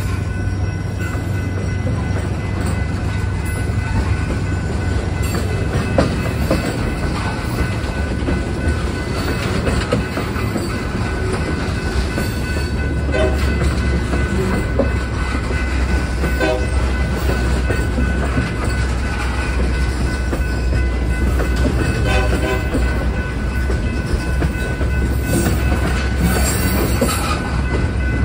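Freight train of tank cars rolling past a grade crossing: a steady low rumble of steel wheels on rail, with clicking as the wheelsets pass over rail joints. A thin, steady, high squeal from the wheels runs over it.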